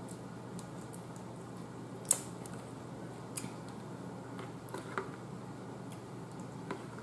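Scattered small clicks and cracks of snow crab leg shell and a metal crab pick as meat is picked out, the sharpest about two seconds in, over a low steady hum.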